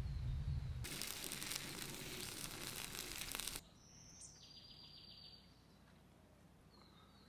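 A Bengal cat scrambling in a tree, its claws scratching and rustling on bark for about three seconds before the sound cuts off suddenly. Then quiet outdoor ambience with a songbird's brief trill.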